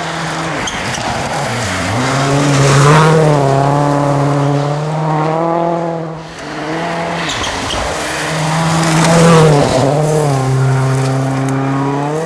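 Ford Focus RS WRC rally car's turbocharged four-cylinder engine running hard, held at high revs with a few brief drops in pitch as it passes at speed on gravel.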